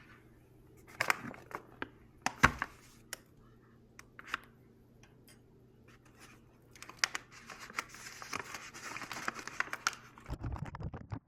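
Plastic parts of a Bunn coffee maker being handled during reassembly: a few sharp clicks and knocks, then a stretch of rustling and scraping, and some low thumps near the end.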